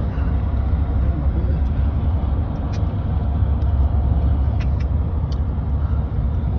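Steady road noise heard from inside a moving vehicle on the highway: a strong, even low rumble with a hiss above it.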